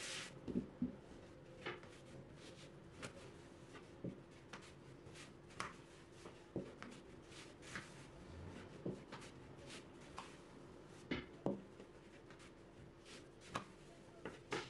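Stiff mantı dough being rolled out thin with a rolling pin on a floured board: faint, irregular light knocks and taps as the pin rolls and is lifted and set down, about one every second.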